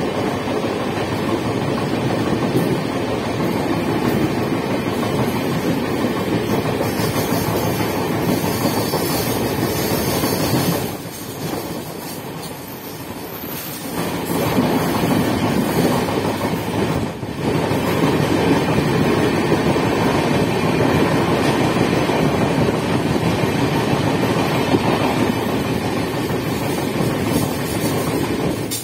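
A moving passenger train's wheels running and rattling over the track, heard from an open coach doorway as a dense, steady running noise. It turns quieter for a few seconds near the middle, then comes back to full level.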